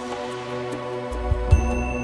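Instrumental background music with sustained held tones; a deep bass note comes in a little past the middle.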